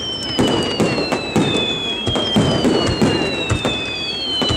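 Aerial fireworks bursting overhead: a rapid, uneven run of bangs and crackles, with several long whistles that fall slowly in pitch.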